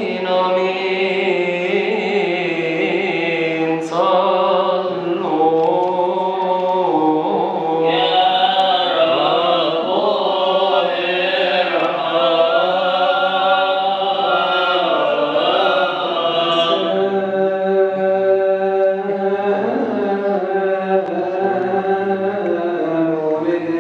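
Coptic Orthodox liturgical chant: a man's voice singing a prayer in long, melismatic phrases with notes held for a second or more.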